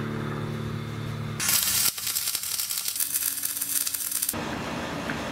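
Arc welding on a steel mast tube: the arc crackles steadily from about a second and a half in until just past four seconds, after a short steady low hum at the start.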